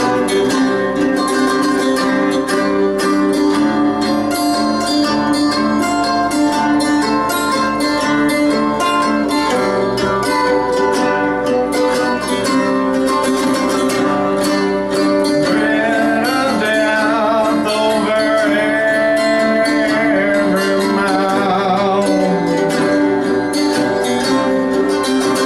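Live acoustic string music: an acoustic guitar and a second string instrument play a busy picked accompaniment. About two-thirds of the way through, a wavering melody line with vibrato comes in over it.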